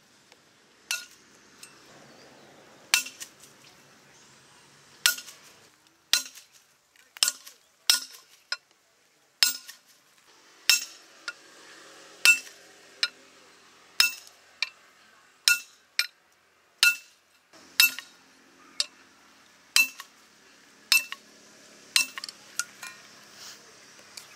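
Steel striking steel: sharp metallic clinks, roughly one a second and irregular, each with a brief ringing tone, as a thin steel rod lying on a sledgehammer-head anvil is struck to notch it and cut it into short pins.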